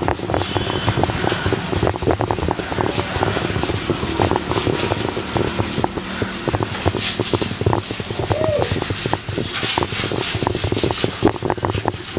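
Hand scrubbing of a stained surface with cleaning liquid: a busy, irregular run of scraping and knocking strokes, with a few short bursts of hiss.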